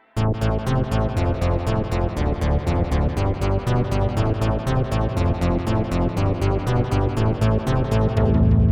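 Roland Alpha Juno-1 synthesizer playing a preset through a delay pedal: a fast pulsing run of notes, about five a second, over a heavy bass. It starts abruptly, and the low end grows heavier near the end.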